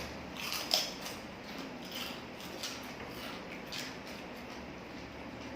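A few small clicks and crunches of eating over the first few seconds, the sharpest one just under a second in, then only a low steady background.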